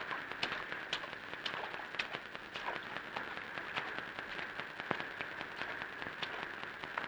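Faint crackling: irregular short clicks scattered over a steady low hiss.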